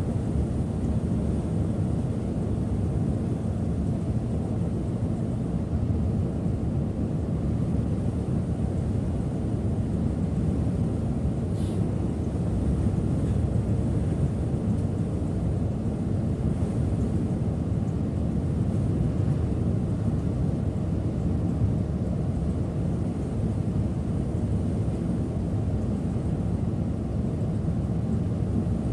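Setra S 531 DT double-decker coach under way, a steady engine and road rumble heard from the driver's seat, with one faint click near the middle.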